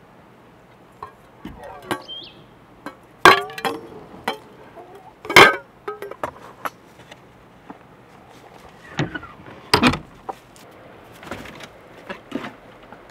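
Hens' eggs clinking against each other and a bowl as they are picked out of a straw-lined nesting box. Several sharp clinks, the loudest about three, five and ten seconds in.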